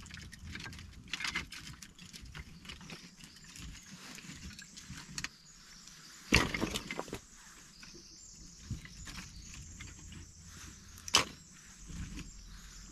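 Small split firewood being handled and knocked together, rustling and clattering, with two sharp wooden clunks about six and eleven seconds in.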